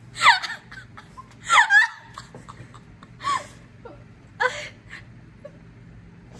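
Several short, high-pitched vocal squeals, each sliding steeply down in pitch, spaced about a second apart.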